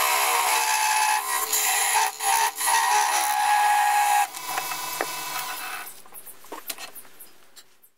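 Parting tool cutting into a spinning wooden candlestick on a lathe: a loud scraping hiss with a steady high whine in it. About four seconds in it drops off sharply, leaving a quieter fading sound with a few light clicks.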